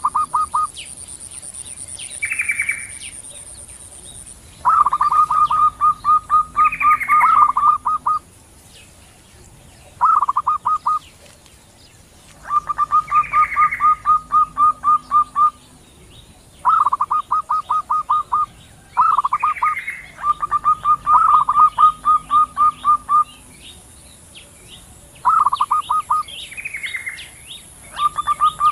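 Zebra doves (perkutut) calling back and forth: repeated bouts of rapid pulsed cooing notes, each bout one to three seconds long, with a shorter, higher sweeping bird note between bouts.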